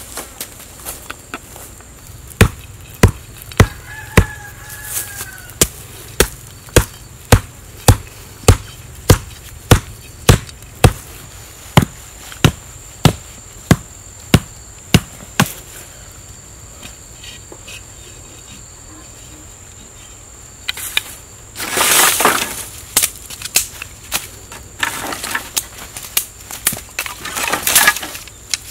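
Wooden stakes being hammered into the ground with a hand-held striker: a long run of sharp knocks, about two a second, which stops about halfway through. After a pause there are bursts of rustling from dry leaves and sticks being handled, over a faint, steady, high-pitched insect drone.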